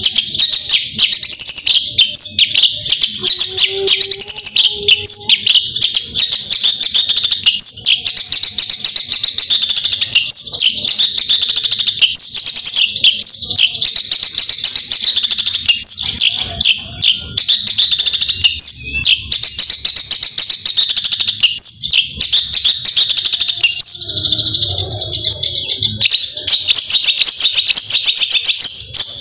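Long-tailed shrike (cendet) in full song: a loud, fast, unbroken stream of rapid high chattering notes and short whistled glides. This is the 'tembakan' burst song used to stir a reluctant shrike into singing. About four-fifths of the way through, the chatter briefly thins to a few held high tones.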